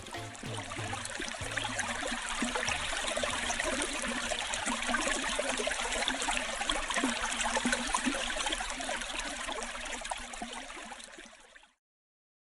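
Rushing water, a dense steady wash like surf or a fast stream. It swells up over the first couple of seconds and fades out shortly before the end.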